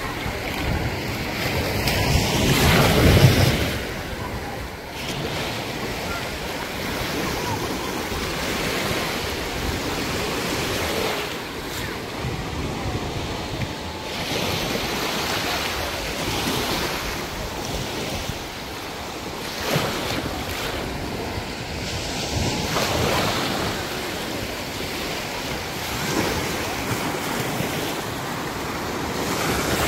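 Small waves lapping and washing over sand in shallow seawater at the shoreline, with wind buffeting the microphone, loudest about three seconds in.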